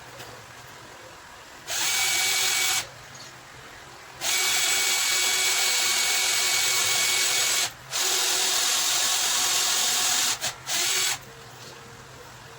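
Power drill running in four bursts, one short, two long and a brief final one, each starting and stopping abruptly with a steady whirring note.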